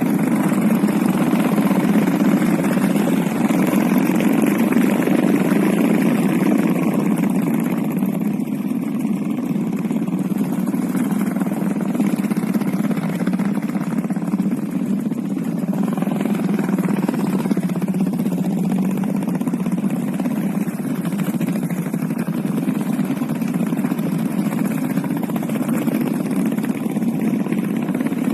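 Royal Enfield Bullet motorcycle's single-cylinder engine running steadily.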